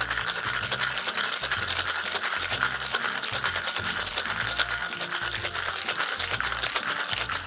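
Ice rattling hard inside a metal cocktail shaker as a margarita is shaken vigorously, a fast, continuous churning clatter.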